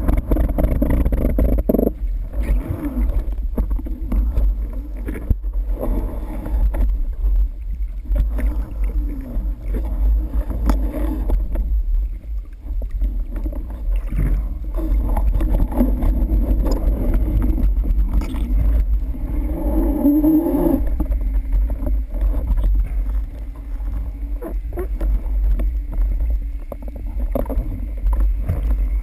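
Underwater ambience heard through a waterproof camera housing during a freedive: a steady low rumble of water with gurgling and faint wavering tones.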